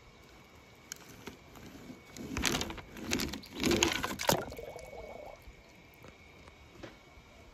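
A small die-cast toy car pushed and scraped across paper, then dropped into a plastic tub of water. There are a few clicks, then a run of loud scraping and splashing noise in the middle, and a short bubbling gurgle after it.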